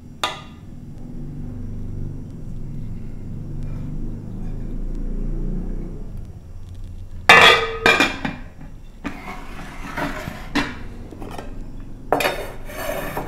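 A metal ladle and aluminium pots clanking and scraping as food is served and a pot is moved, with loud clinks about seven seconds in and again near the end, over a low rumble in the first half.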